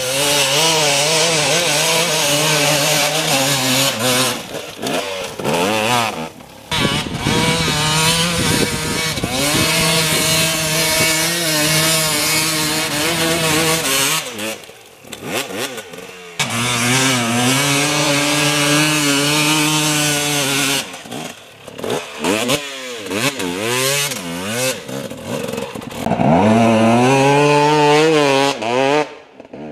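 Dirt bike engines revving hard as they climb steep hills under load. The pitch rises and falls as the throttle is worked, and the sound is broken by several short drops where it falls away.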